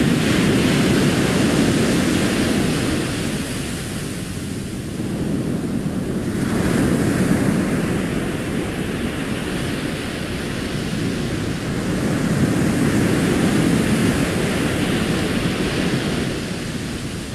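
Recorded ocean surf: waves breaking on a sandy beach, a steady rush of water that swells and fades about every five seconds. It cuts off abruptly at the end when the recording is paused.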